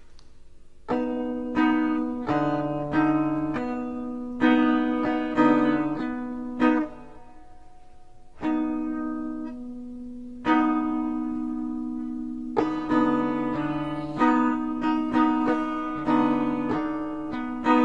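Instrumental music: guitar chords struck and left to ring, each dying away before the next, in a slow uneven rhythm with a pause of about a second and a half near the middle.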